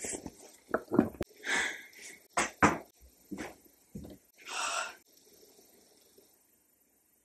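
A string of short breathy vocal sounds from a woman: gasps and quick exhales with a few brief voiced ones. They stop about five seconds in.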